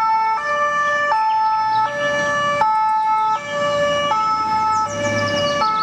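Swiss ambulance's two-tone siren, alternating between a high and a low note about every three-quarters of a second.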